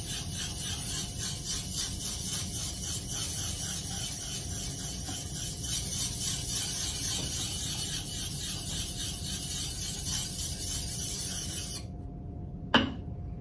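Whetstone rubbed back and forth along the bevel of a drawknife's steel blade while sharpening it freehand, a steady run of quick gritty strokes. The strokes stop about twelve seconds in, followed by a single click.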